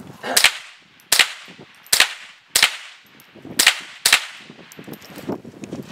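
Remington 597 semi-automatic rimfire rifle firing six shots at an uneven pace, roughly half a second to a second apart, each a sharp crack with a short ringing tail.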